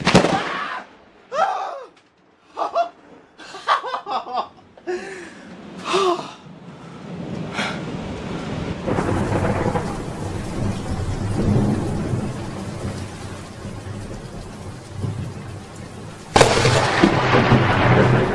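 Thunderstorm with rain falling and a long, low rolling rumble of thunder through the middle. About two seconds before the end a sudden loud crack of thunder breaks in.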